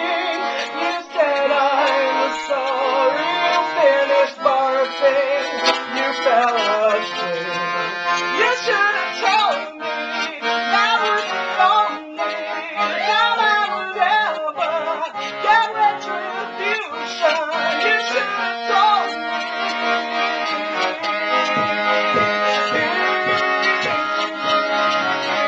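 Piano accordion playing a song between sung lines, with wordless singing gliding over it through the first half; the later part is the accordion alone, holding steady chords over a short, repeating bass.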